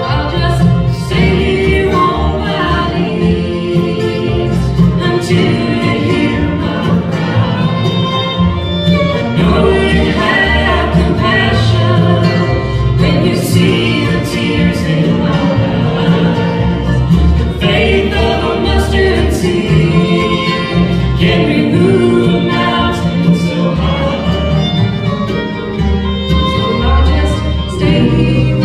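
Live bluegrass band playing a gospel song: fiddle, banjo, mandolin, dobro, acoustic guitar and upright bass, with singing.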